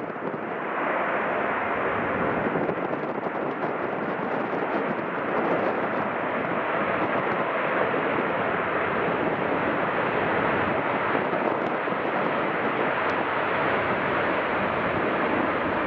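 Air France Boeing 787-9's GEnx turbofan engines running as the airliner rolls along the runway: a steady jet noise without breaks.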